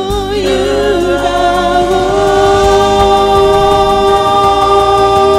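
Karaoke singing over a pop ballad backing track: the voices hold one long, steady note from about half a second in.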